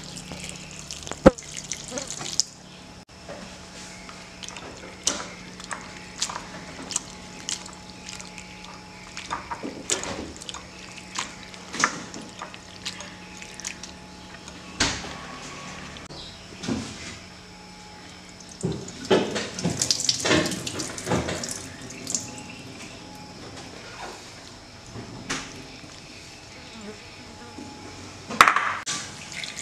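Water poured onto sliced cucumbers in a ceramic bowl, then a hand swishing and rinsing the slices, with repeated small splashes and drips and a busier stretch about two-thirds through. Near the end a louder splash as the rinse water is tipped out into a steel sink.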